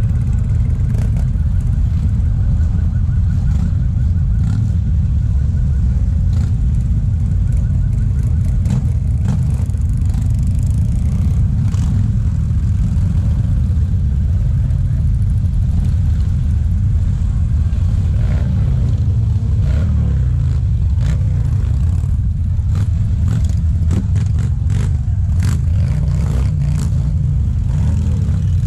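Many motorcycle engines running at low revs together as a large column of motorcycles rolls slowly, a dense steady rumble with occasional short revs rising and falling. Scattered clicks and knocks come through now and then.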